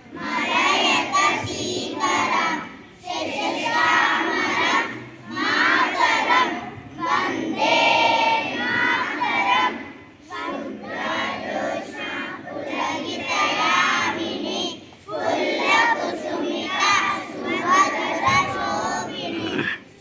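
Many schoolchildren's voices in unison, going in phrases of two to three seconds with short breaks between them.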